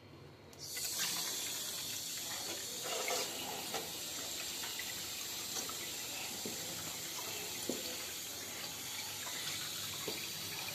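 A kitchen tap turned on about half a second in, then water running steadily from the faucet into a stainless-steel sink and a steel pot, with a few light knocks.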